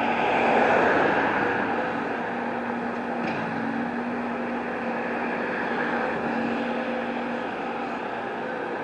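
Street traffic: a vehicle passes close by in the first couple of seconds, then a steady engine hum and road noise continue.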